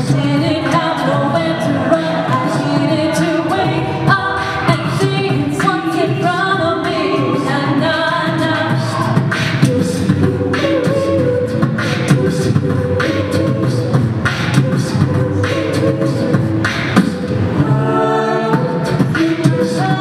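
An a cappella group singing in layered harmony through microphones and a PA, with a beatboxer's percussive hits keeping the beat, most steadily in the second half.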